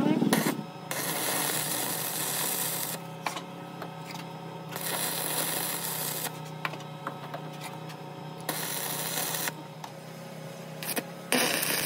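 Electric arc welding, building up weld metal on a broken CV joint held in a lathe chuck to form new teeth. Four bursts of crackling hiss, each one to two seconds long, are broken by short pauses and a few sharp clicks, over a steady low hum.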